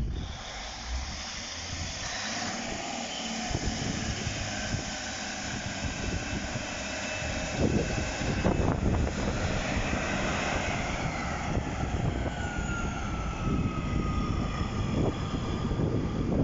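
Class 156 Super Sprinter diesel multiple unit pulling away and passing close by. Its underfloor diesel engines and transmissions run with a low rumble and high whines, one whine falling in pitch near the end, with a few thumps.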